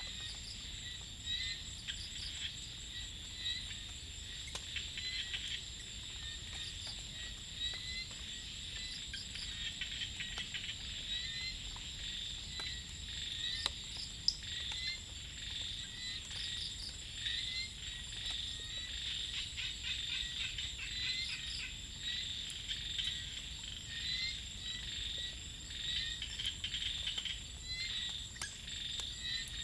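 Evening chorus of insects and small frogs in a rice field. A steady high insect trill runs under dense chirping and clicking, and a short call repeats about every two seconds.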